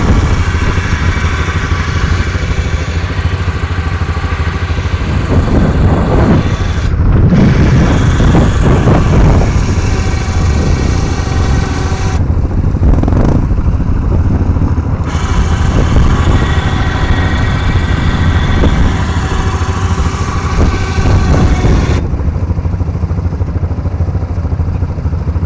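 Quad bike (ATV) engines running loudly close by, a steady engine note with a heavy low rumble, swelling louder at times as quads work through the mud.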